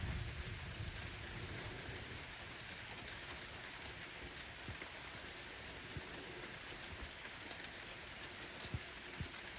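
Steady rain falling, with scattered louder individual drops. The tail of a low thunder rumble dies away at the start.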